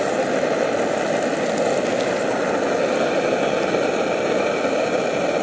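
A Primus camping stove burner running loud and steady under a pan. Its jet has recently been cleared of a soot blockage.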